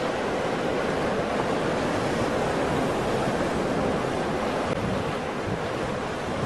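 Ocean surf: waves breaking and washing in a steady rush of noise.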